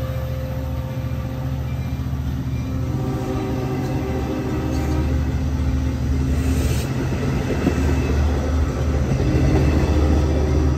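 Long Island Rail Road bilevel passenger coaches rolling past close by as the train pulls out, a steady low rumble of wheels on rail that grows louder toward the end.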